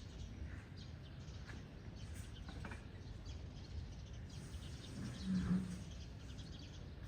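Birds calling: faint short chirps throughout, and a brief low two-note call about five seconds in, the loudest sound.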